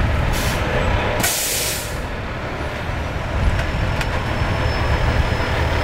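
Fire engine's diesel engine idling steadily, with two bursts of air hiss from its air brakes: a short one at the start and a longer, louder one about a second in.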